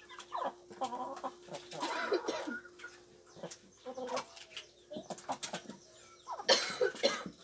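Chickens clucking in a run of short, separate calls, with one louder call near the end.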